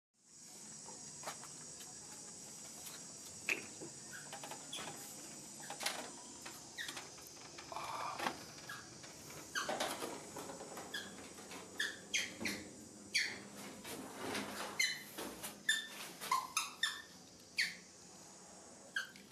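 Young macaque monkey giving short, high squeaks and whimpers, many in quick succession from about ten seconds in, over a steady high hiss.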